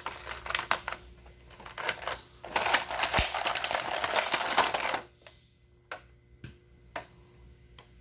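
Hard plastic action-figure parts clicking and clattering as they are handled and pressed together. A dense run of clicks comes in the middle, followed by a few single clicks.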